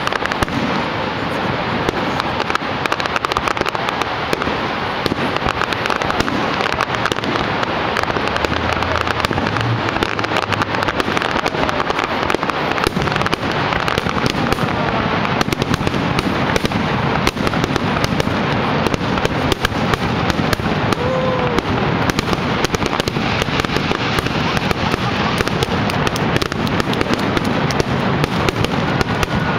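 Aerial fireworks display: a dense, continuous barrage of overlapping bangs and crackles from shells bursting in the sky.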